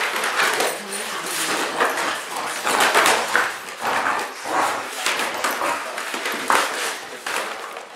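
Two American Bulldog puppies play-fighting, with dog vocalising and irregular scuffling noises throughout.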